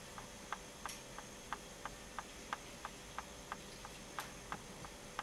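Even ticking, about three ticks a second, over a faint steady hum.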